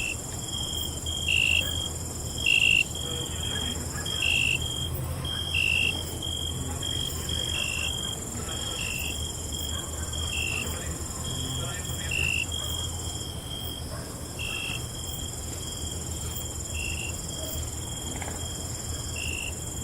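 Crickets chirping: a steady high trill with a second, lower chirp repeating every second or two, over a faint low hum.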